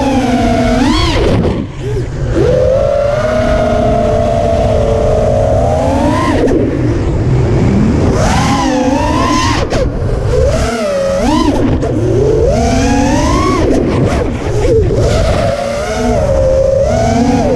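FPV freestyle quadcopter's motors and propellers whining, the pitch sweeping up and down again and again as the throttle changes, over a steady low rush of wind.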